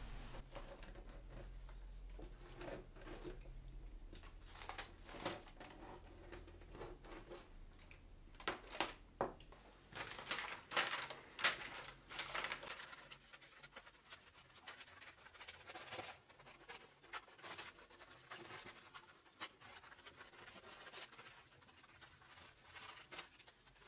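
Faint handling of a thin gold-tinted aluminium foil sheet and its paper backing: light scratching, crinkling and clicks as a reflector disc is traced with a pen and cut out with scissors, busiest about a third of the way in. A low hum runs under the first half and then stops.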